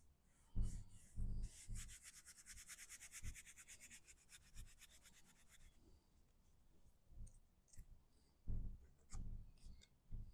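Hands rubbing fast over cardstock to press a paper panel flat onto a paper bag, a rapid scratchy rubbing lasting about four seconds. A few soft thumps of hands and paper on the table come before it and again near the end.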